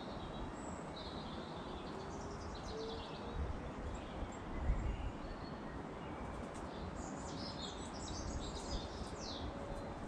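Wild garden birds chirping and twittering in short, high phrases over a steady outdoor hiss, busier in the second half, with a couple of low rumbles around the middle.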